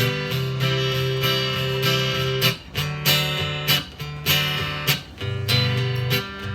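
Acoustic guitar playing a strummed country intro, steady chords with short breaks between phrases.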